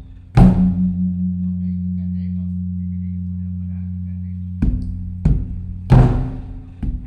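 Thai temple drum beaten for the evening holy-day signal. One heavy stroke about half a second in rings on as a deep, steady hum for about four seconds, then four more strokes follow near the end.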